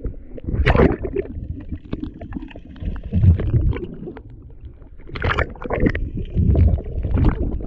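Seawater splashing and sloshing around a camera at the sea surface, with muffled underwater gurgles and rumbles as it dips below the waves.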